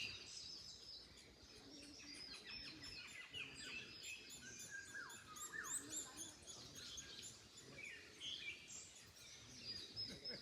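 Several songbirds chirping and singing over one another, with quick high chirps and a few falling whistled notes, over a faint steady background hush.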